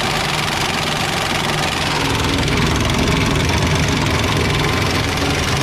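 Impact wrench hammering steadily on a cab-mount bolt of a 1972 Chevrolet C10. The bolt is spinning in its mount instead of breaking loose, so its top side needs holding.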